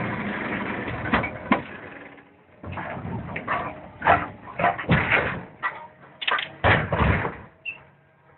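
Hydraulic demolition shear on a tracked excavator working the steel hull of an old deck barge: a dense noise for the first two seconds, then an irregular run of sharp metal bangs and cracks.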